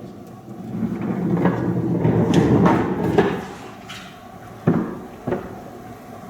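Hand-built cart loaded with cushion pads rolling on its wheels: a low rumble that swells about a second in and fades after about three seconds, with knocks and clunks from the cart, then two sharper knocks near the end.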